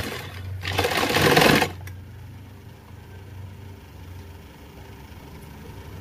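Industrial sewing machine stitching a seam in a short run of about a second, then stopping, leaving its motor humming steadily at a low level.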